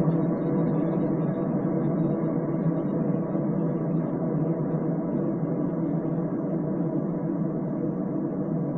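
Heavily slowed, reverb-soaked pop music with no vocals: a muffled, sustained droning chord that slowly fades.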